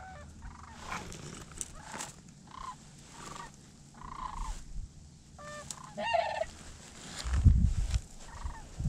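Sandhill cranes calling, a run of repeated short calls, with a low rumble on the microphone about seven seconds in.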